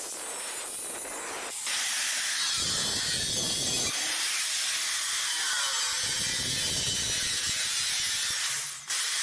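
A power tool cutting into a steel donor mudguard, making a loud, steady hissing grind that breaks off briefly near the end.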